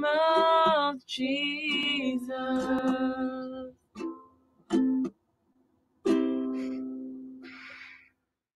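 Two voices singing the last line of a worship song to a ukulele, ending on held notes. A few closing ukulele strums follow, and the last one is left to ring and fade out.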